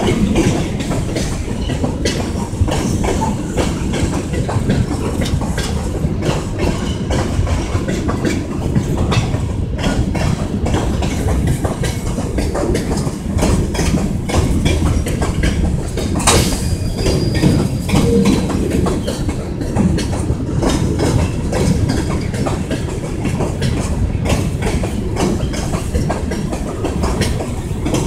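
Kansas City Southern de México freight train's gondola cars rolling past: a steady heavy rumble with the quick clickety-clack of steel wheels over rail joints, and a brief high-pitched sound about halfway through.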